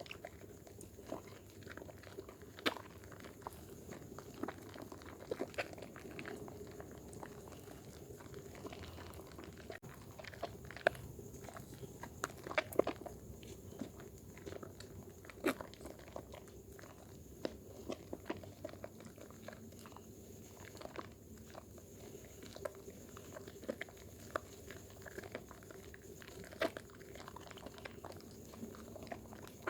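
Dermythol soap being lathered with wet hands: irregular wet squishing and crackling, many small clicks a second.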